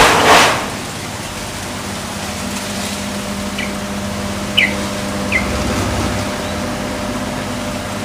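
Young yellow-vented bulbul, still learning to sing, giving three short, faint chirps about a second apart near the middle, over a steady background hiss and hum. A brief rushing burst of noise comes at the very start.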